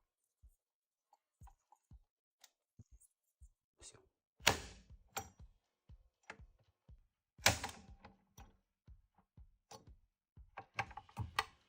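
Motor operator on a moulded case circuit breaker worked by its manual handle: a string of small ratcheting clicks, with two loud mechanical clunks about three seconds apart as the breaker mechanism switches.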